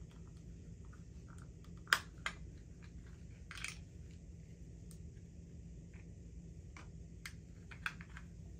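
Scattered light clicks and taps from handling a makeup highlighter compact, the sharpest two about two seconds in, with a short soft rub a little later, over a low steady room hum.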